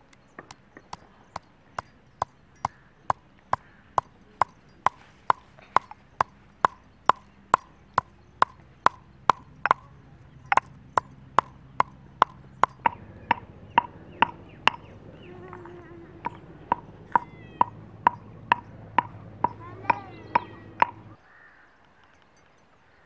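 Stone pestle pounding cardamom pods in a stone mortar: sharp, evenly paced knocks, about two a second, each with a short ringing tone. The pounding stops about 21 seconds in.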